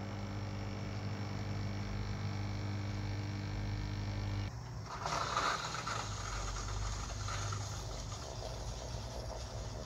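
Tassimo pod coffee machine's pump humming steadily as it pushes coffee through the pod into the glass; about four and a half seconds in, the hum stops and a noisier hiss takes over as the brew runs on.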